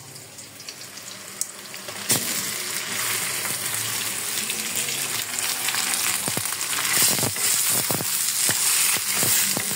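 Raw chicken pieces tipped into hot oil and onions in a wok. A quiet sizzle jumps suddenly to a loud, steady sizzle about two seconds in as the meat hits the oil. Scattered knocks and clicks follow in the second half as more pieces land in the pan.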